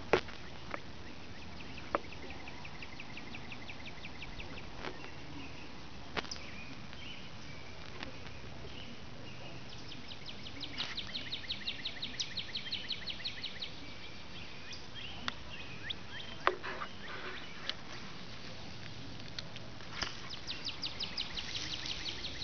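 Outdoor ambience with a songbird singing a rapid trill of quick repeated high notes, heard three times: near the start, about halfway and near the end. There is a few sharp clicks over a faint steady background hiss.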